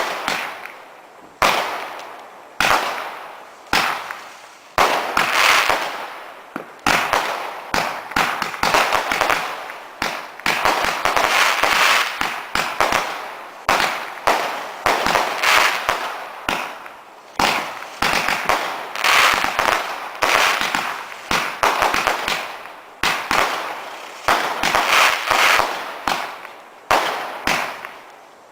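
Multi-shot firework barrage firing: a sharp bang about every one to two seconds, each followed by a crackling burst that fades out.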